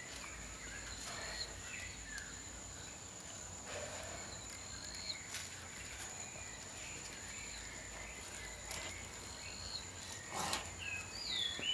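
Outdoor forest ambience: a steady high-pitched insect drone, with short bird chirps scattered through it that grow busier near the end. A few brief rustles are also heard.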